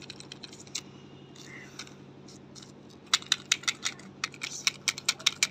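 A quick run of small, sharp clicks and scratchy taps, several a second, beginning about three seconds in, from a gloved hand handling a small plastic toy car in sand. A faint steady hum lies underneath.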